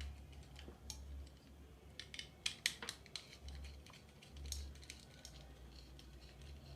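Small sharp clicks and snips as electrical wire is handled and connected to a light switch's terminals, bunched together a couple of seconds in, over a steady low hum.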